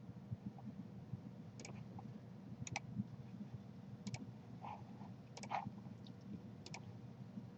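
Computer mouse clicking now and then, about six sharp clicks, some in quick pairs, over a faint steady hum.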